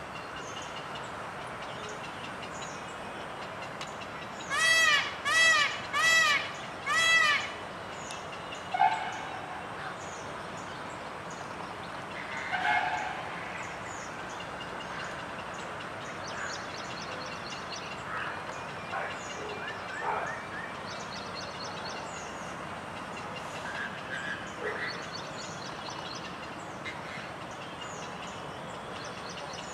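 Indian peafowl calling four times in quick succession, loud ringing calls a few seconds in. Smaller birds chirp intermittently over a steady background hiss.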